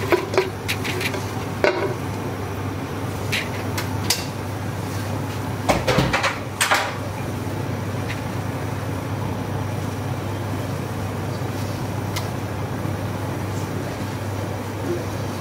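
Chopped onion pieces slid off a plate into an empty stainless steel pot, knocking and clattering on the metal, with a louder cluster of knocks about six seconds in. A steady low hum runs underneath.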